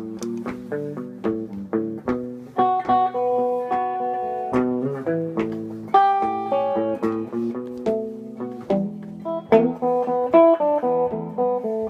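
Blues guitar playing an instrumental passage: a steady run of picked single notes and chords with ringing sustained notes, no singing.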